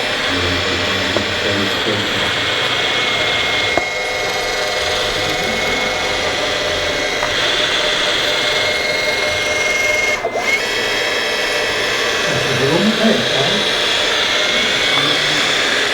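Small electric motors and gearboxes of radio-controlled construction models whining steadily, with a high held tone that cuts off about ten seconds in.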